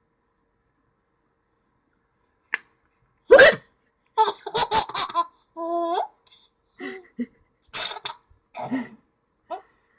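A person with hiccups: a sudden loud hiccup about three seconds in, then laughter broken by more short hiccup-like bursts toward the end.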